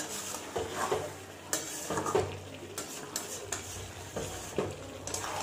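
A spatula stirring and scraping chicken pieces in spice paste around a large metal kadai, with irregular scrapes and knocks against the pan over the sizzle of frying. This is the high-flame stage of sautéing the meat in its masala.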